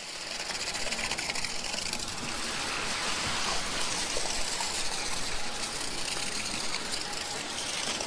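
Wet concrete gushing steadily out of a concrete pump hose into a footing form.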